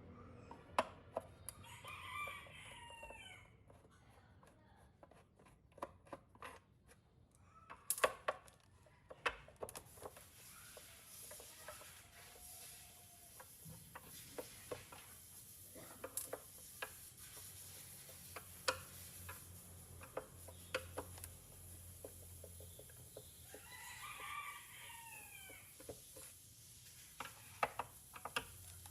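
A rooster crowing twice, about two seconds in and again near the end, over scattered sharp clicks and taps.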